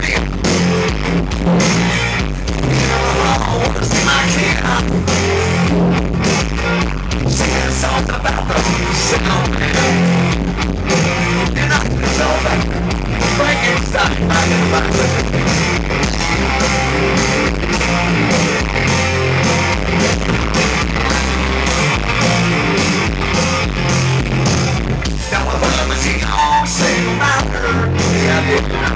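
Live rock band playing loud, with electric guitar, drums and singing.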